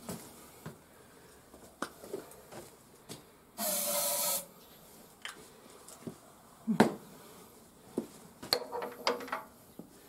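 A short hiss from an aerosol spray can, just under a second long, about three and a half seconds in. Scattered clicks and knocks of handling tools and metal parts come before and after, with the sharpest knock near seven seconds.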